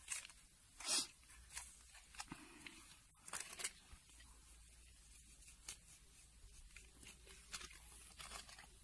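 Hands squishing and rubbing a thick masala marinade into raw chicken leg pieces: faint, scattered wet squelches and smacks, the loudest about a second in and around three and a half seconds in.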